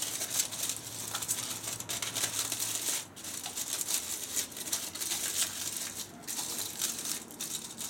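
Aluminium foil crinkling and crackling as it is folded and crimped by hand to cover a dish: a dense run of quick crackles with brief lulls about three and six seconds in.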